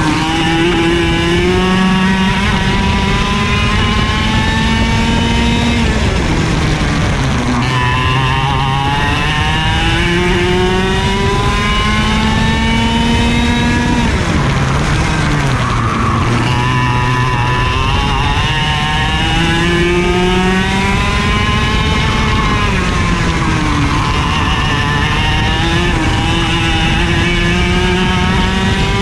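IAME KA100 two-stroke kart engine at racing speed, heard onboard: the revs climb steadily along each straight and fall away sharply for a corner three times, over constant wind rush.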